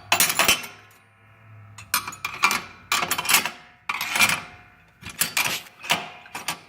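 Metal hand tools (wrenches, a socket wrench and a screwdriver) clinking and clattering against each other as they are set down into a small tool box, in about six short clusters of sharp clinks with a brief metallic ring.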